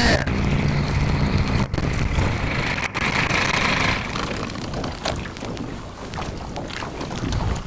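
A motorboat's outboard engine running steadily. The sound cuts out very briefly twice, from dropouts on the damaged tape.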